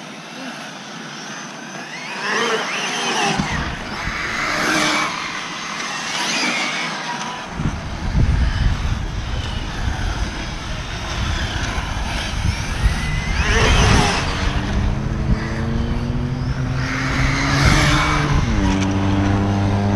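Team Associated SR7 and other 1/7-scale electric RC on-road cars lapping an asphalt track, their brushless motors whining up and down in pitch as they accelerate and pass.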